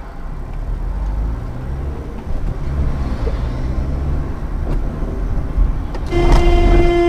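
Car on the road: steady low engine and road rumble, then about six seconds in a horn starts sounding, one steady held tone.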